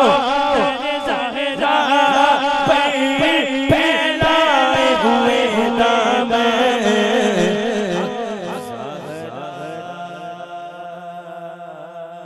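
A man singing a naat solo into a microphone, with long, wavering, ornamented notes. Sharp taps run under the voice in the first few seconds, and from about eight seconds in the voice settles onto a long held note that steadily gets quieter.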